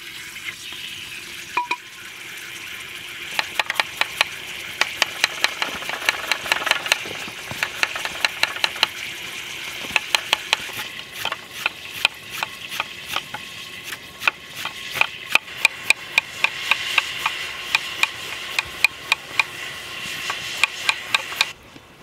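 Turkey thigh frying in oil in a Kazan Afghan pressure cooker: a steady sizzle with many sharp, irregular pops and crackles, cutting off suddenly near the end.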